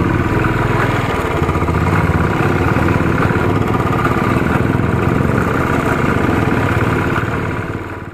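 Royal Enfield motorcycle engine running steadily while the bike is ridden, fading out near the end.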